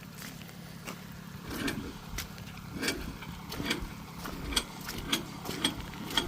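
A vehicle engine idles steadily under a series of sharp clicks or knocks that start about a second and a half in and settle into roughly two a second toward the end.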